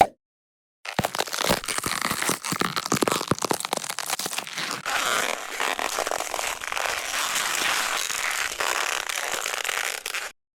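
Dense crackling and crunching noise effect, starting about a second in and cutting off shortly before the end.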